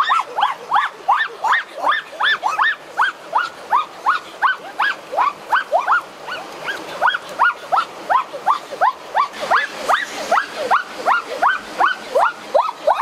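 An animal calling over and over: short notes, each rising and then falling in pitch, about three a second without a break.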